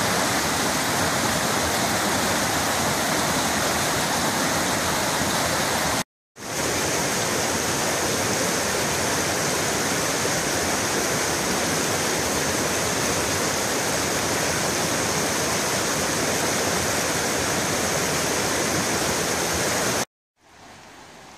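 Fast-flowing rocky stream, white water rushing over stones in a loud, steady rush. The sound drops out briefly about six seconds in and cuts off shortly before the end.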